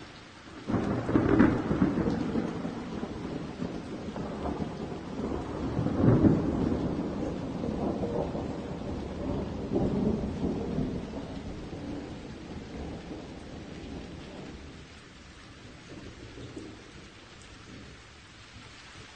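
Rolling thunder: a sudden rumble about a second in, further swells at about six and ten seconds, then fading to a low grumble near the end.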